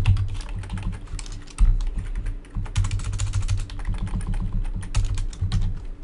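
Computer keyboard typing: a fast, uneven run of key clicks with a dull low thud under the strokes.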